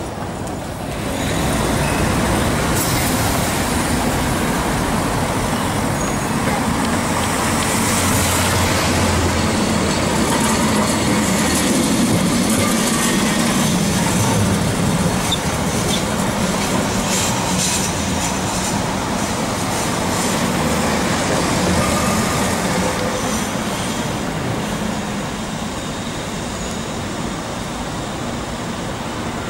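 Lisbon Remodelado tram running past close by on street rails, its wheels rumbling and rattling over the track, amid street traffic. The noise swells about a second in and eases off over the last several seconds.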